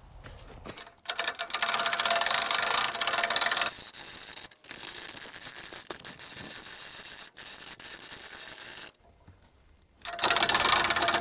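Sawmill winch pulling a log up onto the mill's bed rails: a rapid mechanical ratcheting clatter. It starts about a second in, is loudest for the first couple of seconds and then eases off, stops for about a second and starts again near the end.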